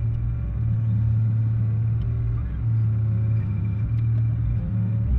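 A loader's diesel engine running steadily, heard from the operator's seat as the machine moves in on a junked van.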